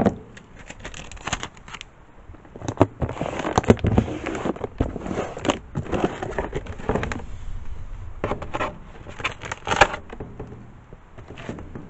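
Handling noises from packing a shoebox: irregular crackling, scraping and light knocks as paper and small items are moved about, busiest in the middle and dying down near the end.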